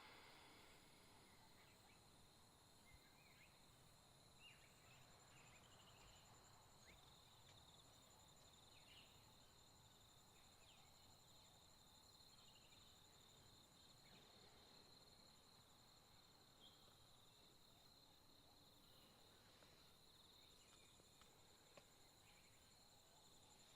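Near silence, with faint insects trilling steadily at a high pitch and a few faint short chirps.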